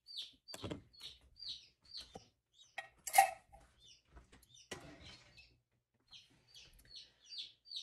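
A bird chirping over and over, short high chirps about two a second. A few light knocks and one sharp clink about three seconds in come from kitchen handling at the skillet as pepper is shaken in.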